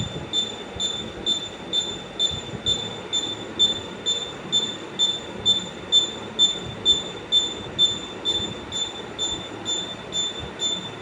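A high-pitched squeak repeating evenly, a little over twice a second, over a steady low rumbling noise.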